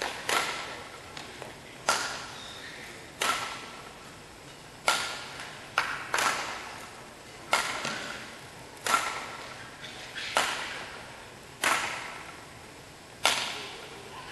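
Badminton rackets striking a shuttlecock in a steady exchange, a sharp smack about every one and a half seconds, each hit echoing in a large hall.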